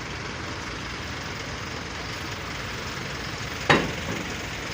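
Steady noise of vehicles and engines running, with one sharp knock about three and a half seconds in.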